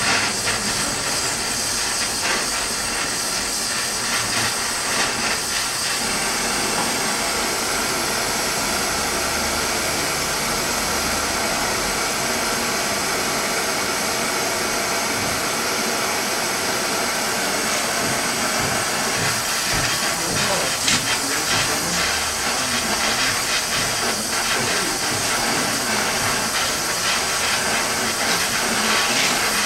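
Oxy-propane torch flame hissing steadily as it heats a small case-hardened mild-steel part back up for another quench.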